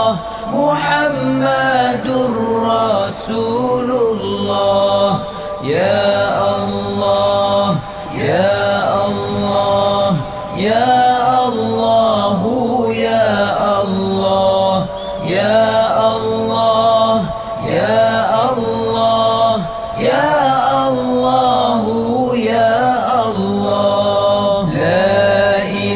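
Zikir (dhikr) chanting: a voice repeats a short Arabic invocation in a slow, melodic chant, starting a new phrase about every two seconds.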